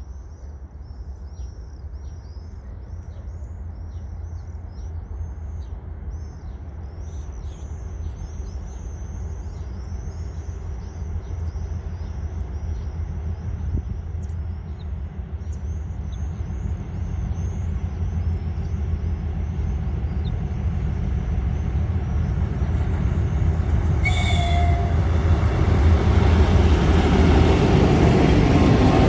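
2TE10M diesel locomotive approaching, its low engine rumble growing steadily louder, with swifts screaming overhead through the first half. A brief horn toot sounds a little before the end.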